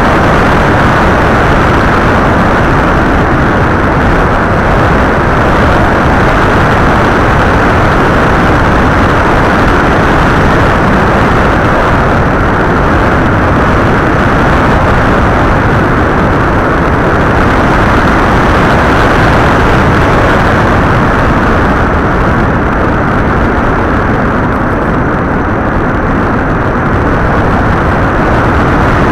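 Steady rushing noise of airflow and motor from an FPV model aircraft in flight, picked up by its onboard camera; loud and unchanging, with no clear engine pitch.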